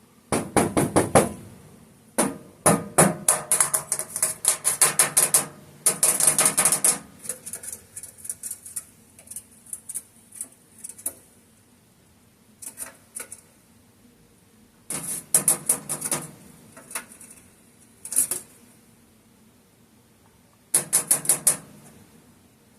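Fingernails drumming rapidly on a furnace flue pipe in bursts of quick clicks, with quieter scattered taps in between and a longer pause near the middle.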